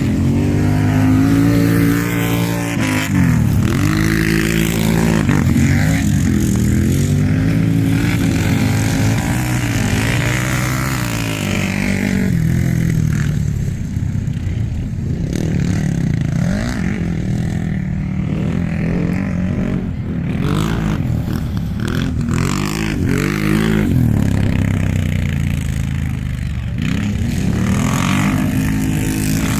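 Racing ATV (quad bike) engine running hard, revving up and down over and over as it accelerates and backs off.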